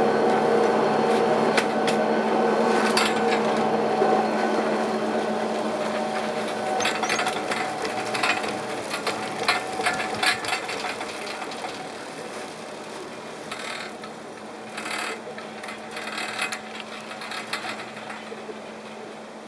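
Chairlift machinery running: a steady mechanical hum from the lift station fades as the chair rides away up the line. Later come scattered clicks and rattles from the moving lift.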